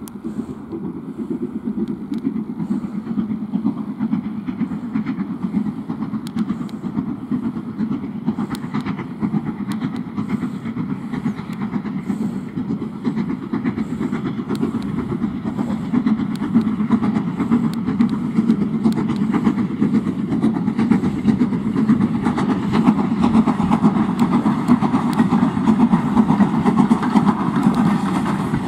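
Southern Railway Q class 0-6-0 steam locomotive No. 30541 working a train, a steady rumble of exhaust and running gear that grows louder as it draws near.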